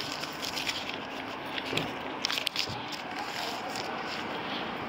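Steady outdoor background noise, with a few faint clicks and scuffs about two seconds in.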